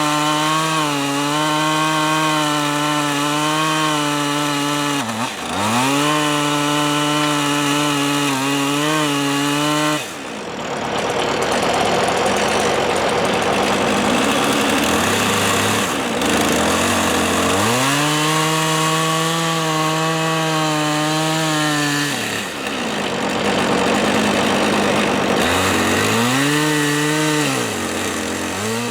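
Two-stroke chainsaw running at high throttle, cutting wood. The engine pitch dips briefly a few times. For several seconds in the middle it gives way to a rougher, noisier sound before the saw revs high again, and it falls off at the end.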